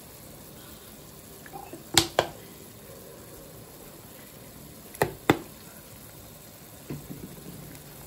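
Pan of instant-noodle broth simmering on a gas stove with a low, steady bubbling. Two pairs of sharp clinks cut through it, about two seconds in and about five seconds in.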